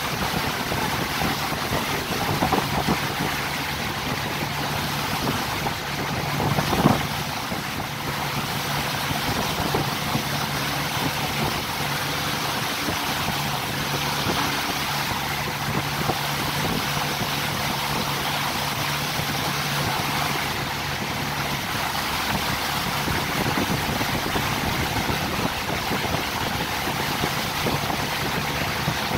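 Motorboat running at speed: a steady low engine hum under a constant rush of water and wind, with a single thump about seven seconds in.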